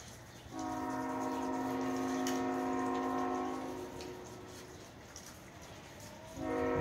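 Freight locomotive's multi-note air horn sounding one long blast of several notes at once, lasting about three seconds and starting about half a second in, then a second blast beginning near the end.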